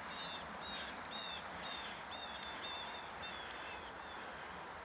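A bird singing a long series of short, repeated high chirps, a few a second, over faint outdoor background noise.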